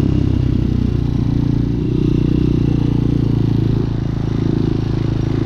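Hawk 250 motorcycle engine running while ridden at low speed, holding a steady note that eases off slightly about four seconds in.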